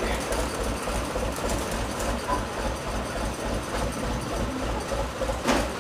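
Narrow-gauge steam train of the Groudle Glen Railway, hauled by the locomotive Walrus, running along the line. A steady low pulse repeats about four times a second, with a sharp knock about five and a half seconds in.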